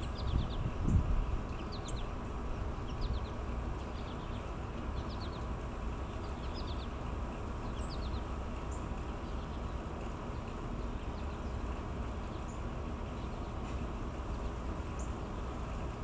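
Small songbirds chirping in short, scattered calls over a steady low background rumble, which is louder in the first second.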